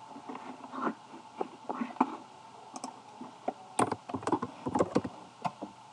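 Computer keyboard keystrokes and clicks: a few scattered single clicks, then a quick run of keystrokes about four seconds in.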